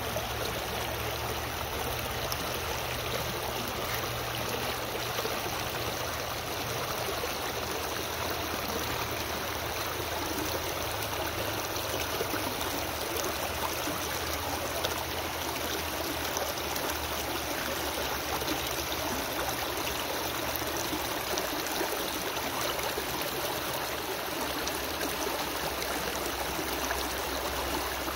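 Shallow rocky stream running and splashing over stones and small riffles, a steady rush of water.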